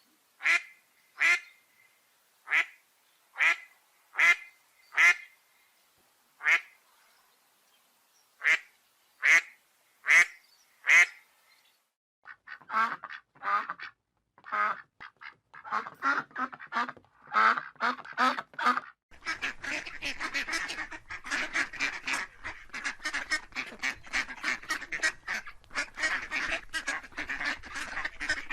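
Ducks quacking. First come about a dozen separate quacks, roughly a second apart, then a quicker run of quacks. About two-thirds of the way in, a flock starts quacking together without a break.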